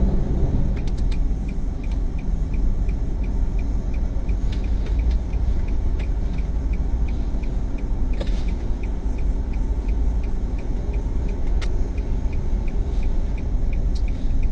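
Steady low rumble of a car's engine and tyres heard from inside the cabin, with a light regular ticking about two and a half times a second.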